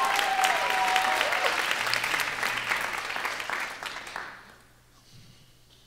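Theatre audience applauding, with a few held pitched cries over the first second and a half; the clapping fades out about four seconds in.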